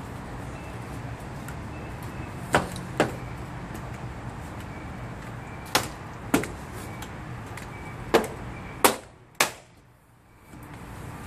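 Window-cleaning poles with flat pad heads knocking sharply against the glass and window frame, seven knocks, mostly in pairs, over a steady low background noise.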